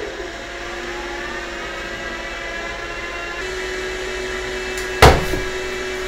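Apple Xserve rack server booting: its cooling fans spin up over the first second, then run steadily with a whining hum, one tone stepping up slightly about halfway through. A single sharp knock about five seconds in.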